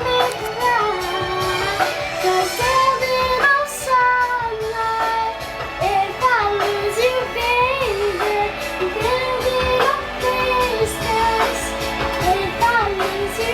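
A child singing a sliding, drawn-out vocal line over a pop ballad backing track.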